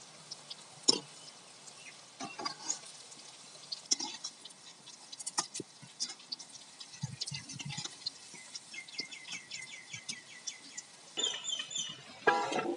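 Gourd-and-cashew pakoda deep-frying in hot oil in a steel kadai: a low sizzle with scattered crackling pops. Near the end a bird chirps in quick runs, followed by a short louder call.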